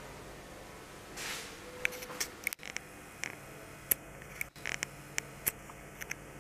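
Handling noise from a handheld camera: a brief rustle, then scattered small sharp clicks at irregular intervals over a steady low room hum.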